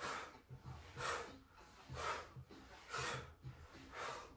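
Hard, rhythmic breathing from exercise: a sharp puff of breath about once a second, in time with the twists of bicycle crunches.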